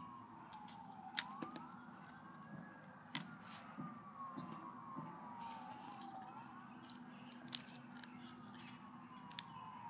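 Faint emergency-vehicle siren wailing, its pitch slowly falling and then rising again about every four seconds. Scattered sharp clicks from tweezers picking broken screen glass sound over it.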